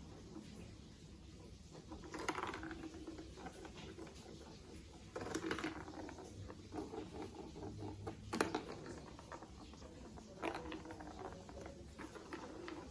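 Plastic marble-run pieces clicking and rattling in short bursts, about four clusters with a single sharp click a little past the middle.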